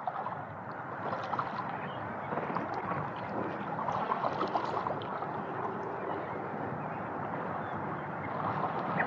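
Running water of a stream at the snowy bank, a steady flow with small irregular splashes.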